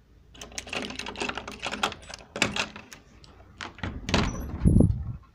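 Close rustling and crackling clicks, like handling noise on a phone's microphone, then a few sharp knocks and a dull thump near the end.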